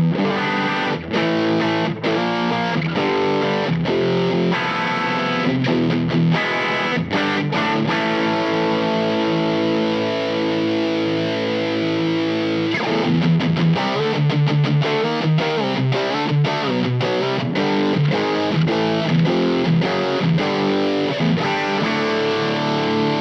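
Electric guitar played through an MXR FOD Drive overdrive pedal: distorted chords and riffs. Midway, one chord is left ringing for about five seconds before the strumming starts again.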